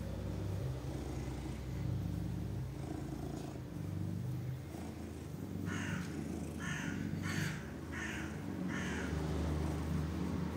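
Domestic cat purring steadily up close, a low continuous rumble. A little past halfway, five short harsh calls come in quick succession, about two a second.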